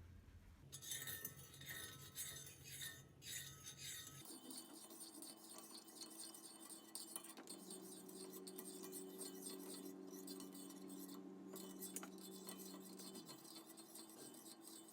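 Faint scraping and rubbing of hands-on kitchen work for a few seconds, then a faint steady hum with a few held tones.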